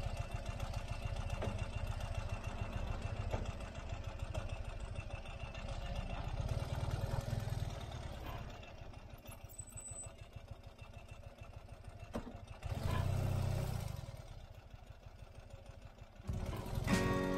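Ural sidecar motorcycle's boxer-twin engine running at low revs as the outfit is backed up in reverse, with a brief rise in revs about thirteen seconds in. Music comes in near the end.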